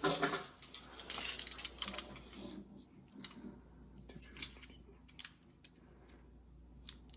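Hand cutting tool snipping, with short sharp clicks and handling rattle: trimming parts of a light fixture's wire clip assembly. The cutting is busiest in the first two seconds or so, then a few lighter ticks follow.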